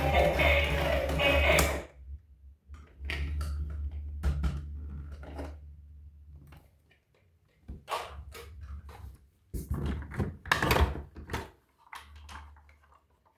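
Music stops abruptly about two seconds in. After that come scattered clicks and knocks, some single and some in quick clusters, over a low steady hum.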